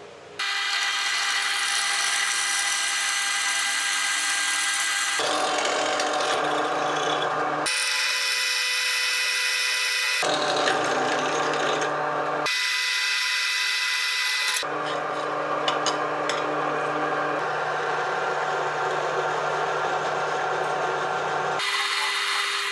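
Drill press boring holes through a metal plate: the motor's steady whine and the bit cutting metal. It comes in several short stretches joined by abrupt cuts, each holding a slightly different pitch.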